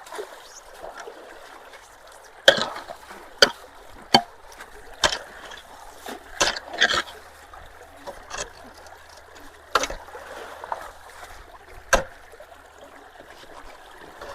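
Water trickling through a leaf-clogged culvert, broken by about eight irregular sharp knocks and splashes as leaves and debris are worked loose.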